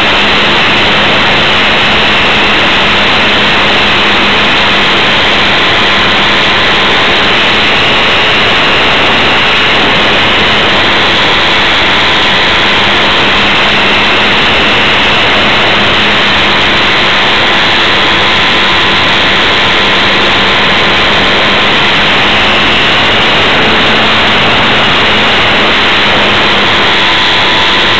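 Motor and propeller of a small radio-controlled airplane in flight, heard from a camera mounted on the plane: a loud, steady buzz with wind rush, its whine drifting slightly in pitch.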